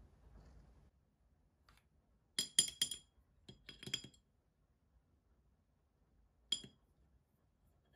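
Stainless steel pen nib lightly scratching across watercolour paper for the first second, then clinking against a ceramic palette dish as it is swished in the water well to rinse it: two quick runs of ringing taps a couple of seconds in, and one more single clink near the end.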